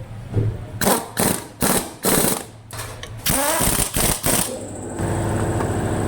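A run of sharp knocks, about two or three a second, then a motor starts about five seconds in and runs steadily.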